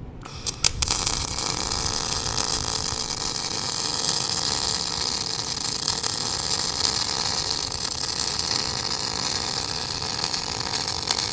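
MIG welding arc from a Sanjoe NBC 500 MIG welder laying a bead on a steel lap joint: a few sharp cracks as the arc strikes, then a steady crackling hiss.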